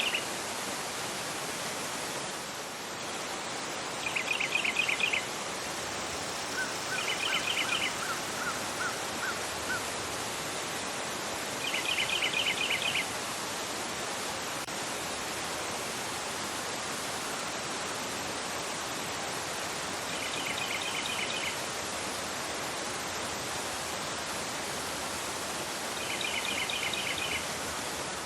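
Fast-flowing river rushing over a rocky bed, a steady full rush of water. A bird repeatedly sings short trills of rapid notes, each about a second long, five times a few seconds apart, and a fainter, lower series of short notes comes in briefly about a quarter of the way in.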